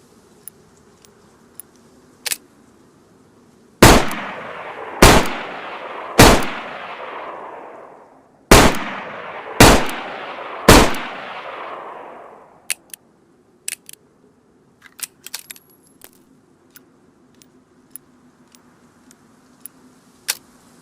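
Sawed-off revolver sound effect: six loud shots in two groups of three, each shot about a second apart and trailing a long echoing tail. Short, sharp clicks come before the first shot and in a scatter after the last.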